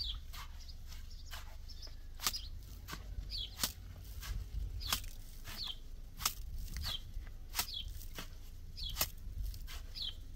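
Sharp knocks repeating evenly about every second and a half, six in all, starting about two seconds in. A small bird's short falling chirp repeats between them.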